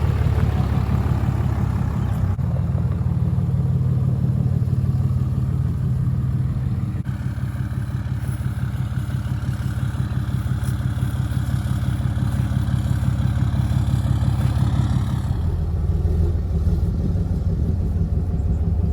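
Tractor engine running steadily under load, a low pulsing drone whose tone shifts a few times, about 7 and 15 seconds in.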